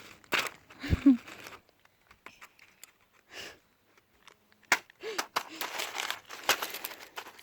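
Fidget toys being handled and shuffled: irregular plastic clicks and crinkling rustles, with a low thump about a second in.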